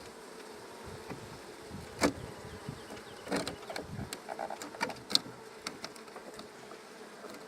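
Honeybees buzzing in a steady hum around an open hive, with several sharp clicks and knocks from the hive being worked, the loudest about two and five seconds in.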